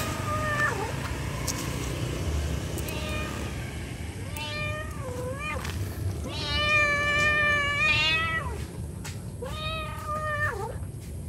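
Domestic cat meowing: about four drawn-out meows, the longest about two seconds near the middle, most ending in a short falling dip. The call is offered as a mother cat calling her kittens.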